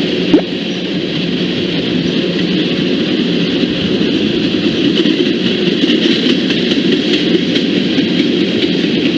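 Passing train: a loud, steady rumble of wheels on rail with faint ticks, and one sharp pop about half a second in.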